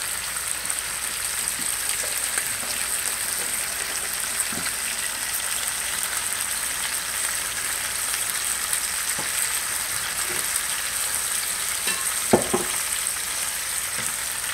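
Chicken thighs and chopped bacon frying skin side down in bacon grease in a pan: a steady sizzling hiss as the skin crisps. A single short knock sounds near the end.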